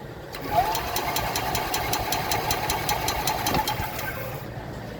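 Golf cart's Kawasaki 400 engine being cranked by the starter without firing: a steady whine over even chugging, about four to five pulses a second. It stops after about four seconds without catching.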